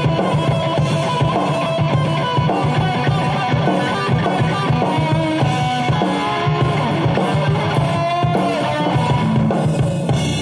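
Electric guitar lead played on a Kramer Assault 220, single notes with bends that glide in pitch, over a steady drum beat.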